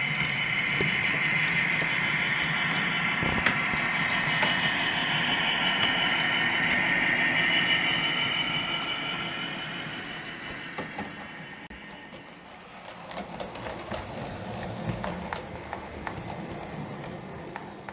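OO gauge model of an EWS Class 66 diesel running with DCC sound: a steady engine drone with a high whine from its speaker, fading from about ten seconds in as it passes, while its train of loaded wagons rolls by with small clicks over the track.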